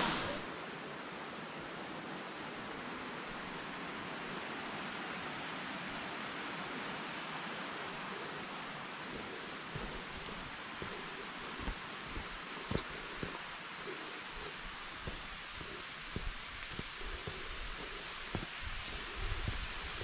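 Steady hiss of rushing water from the waterfalls, with a steady high-pitched tone above it. Soft low thumps come in from about halfway.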